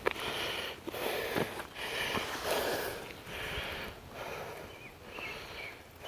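Footsteps along a dirt hiking trail, a rustling step about every second, growing fainter towards the end.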